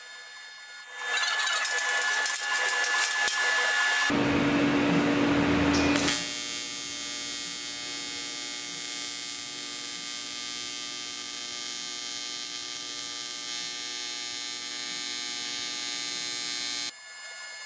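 AC TIG welding arc on aluminum, buzzing with a steady electrical hum. It is louder and harsher for a few seconds near the start, then settles into an even buzz.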